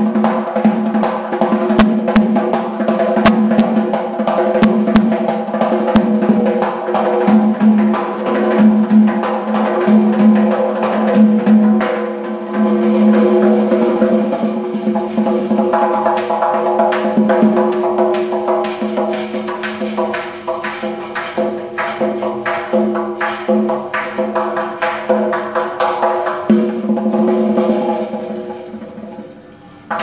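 Uzbek doira frame drum played solo in fast, dense patterns of finger strokes and rolls over the skin's ringing tone, with the jingle of the metal rings inside its frame. The playing thins out and stops near the end.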